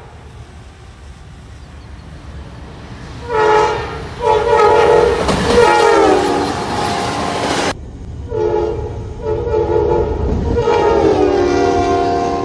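Amtrak GE Genesis diesel locomotive's multi-chime air horn blowing a series of short and long blasts, the crossing warning, as the passenger train passes. The chord drops in pitch as the locomotive goes by, over the low rumble and wheel clatter of the train. The first three seconds hold only the rumble of the approaching train.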